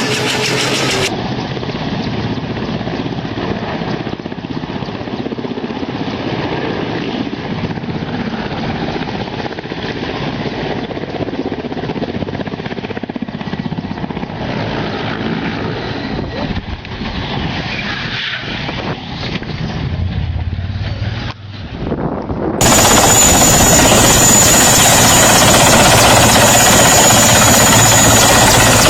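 Helicopter noise: a dense, steady din of rotor and engine. It changes abruptly about a second in and again about two-thirds of the way through, where it becomes louder and brighter with a steady high whine.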